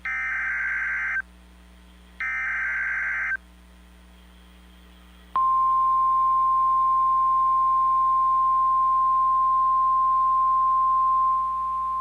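Emergency Alert System SAME header data bursts on NOAA Weather Radio: two harsh, buzzy data bursts, each about a second long and a second apart. About two seconds after the second burst, the steady single-pitch 1050 Hz weather alert tone starts and holds, dropping a little in level near the end. Together they signal the start of an alert, here a severe thunderstorm watch.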